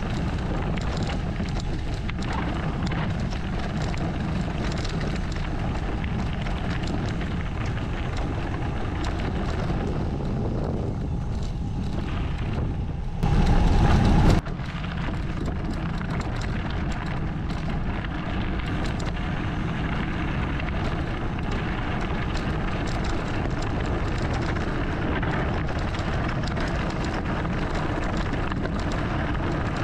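Mountain bike rolling downhill over a dirt trail and then loose gravel, with steady tyre rumble, small rattles and clicks from the bike, and wind rushing over the camera microphone. About halfway through, a much louder low rumble lasts a little over a second.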